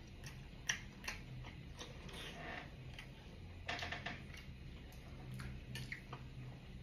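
Quiet chewing and mouth clicks from eating steamed pork and chive dumplings, with a short wet smack of finger-licking near the middle and a few small clicks as chopsticks reach into the ceramic bowl near the end.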